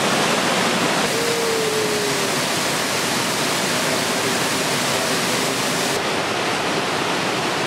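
Whitewater rapids rushing steadily over rock, a continuous loud roar of water.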